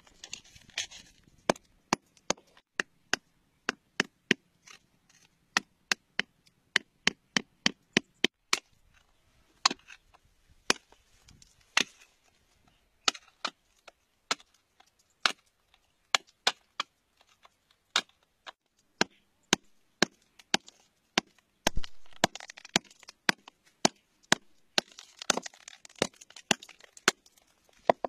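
Hammer striking a steel chisel against rock: dozens of sharp, irregular taps, about one or two a second. Over the last few seconds a scraping rustle of loose soil and gravel joins the taps.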